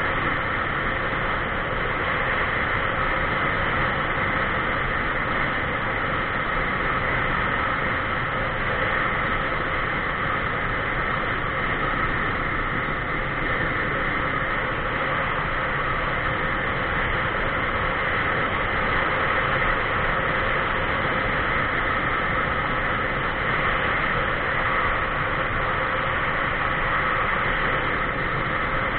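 Steady rushing wind and road noise on a camera riding along a paved highway, even and unbroken throughout.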